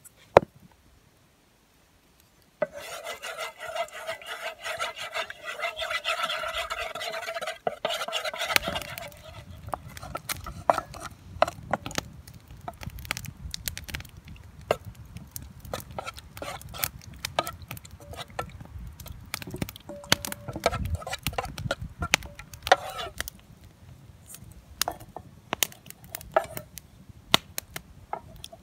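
A carved wooden spoon stirring chicken pieces in sauce in a metal cook pot. First comes a sustained rubbing scrape for several seconds, then many irregular light clicks and taps of the spoon against the pot.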